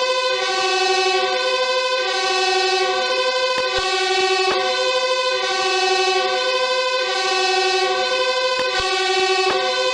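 Fire engine two-tone siren, a steady hi-lo sound switching between two pitches about every second.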